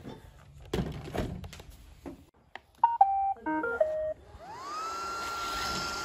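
iRobot Roomba robot vacuum set down on a table with a few knocks, then playing its short beeping start-up tune of stepped tones about three seconds in. Its motors then spin up in a rising whine and settle into a steady high whir as it starts cleaning.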